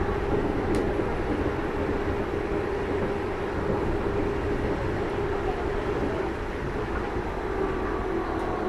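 Rubber-tyred automated metro train running, heard from inside the car: a steady rumble of the tyres and running gear with a steady motor whine.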